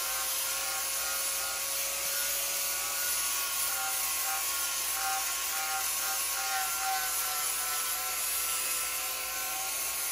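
Electric angle grinder with an abrasive disc running steadily against the rusted, peeling paint of an old engine's water hopper, grinding it down to smooth the surface. A steady motor whine sits under the rasp of the disc on the metal.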